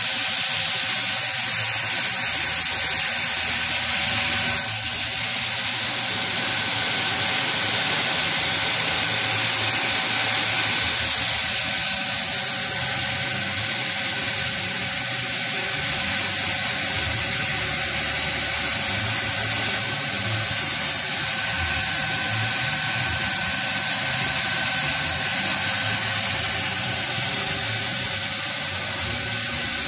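Doosan Puma 700XLY CNC lathe cutting a large metal workpiece under flood coolant: a steady hiss of coolant spray with a constant machine whine underneath.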